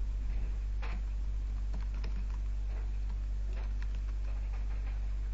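Computer keyboard being typed on, keys clicking at an irregular pace, over a steady low hum.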